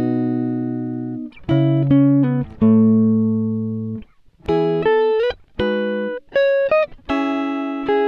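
Background music on a plucked guitar: single notes and chords struck one after another and left to ring, with brief pauses between phrases.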